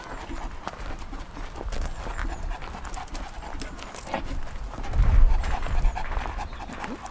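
A St Bernard panting steadily while walking on a lead, with footsteps on gravel. A loud low rumble comes about five seconds in.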